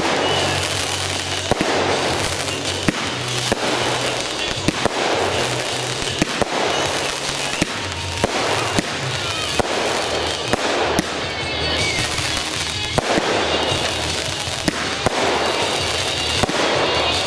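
Aerial fireworks going off in quick succession: a string of sharp bangs as shells burst, with crackling in between.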